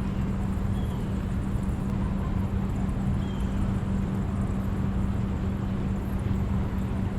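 A steady motor hum, holding one low pitch, with a few faint short chirps above it.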